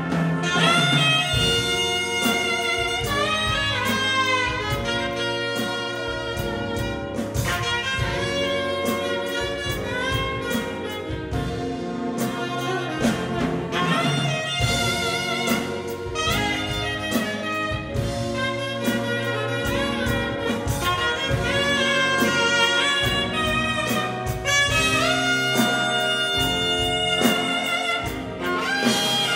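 A jazz big band playing live, with a saxophone solo over the horns, piano, bass and drums.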